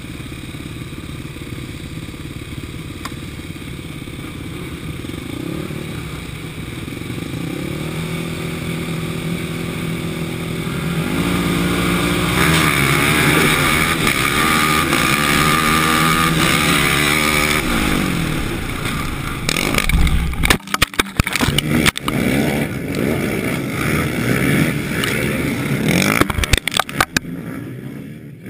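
Racing quad bike engines running hard, the pitch climbing in steps as the quad accelerates down the track. About twenty seconds in, a run of loud knocks and scrapes as the quad crashes, and the engine sound falls away near the end.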